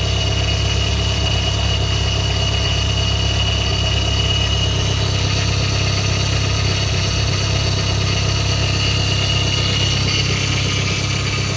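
Mitsubishi Lancer Evolution V's turbocharged 4G63 four-cylinder engine idling steadily, with a thin, steady high-pitched whine above the engine note that fades about ten seconds in.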